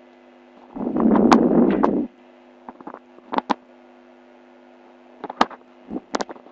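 Steady low electrical hum from the recording setup. About a second in comes a loud rough noise lasting just over a second, then a few sharp, separate clicks.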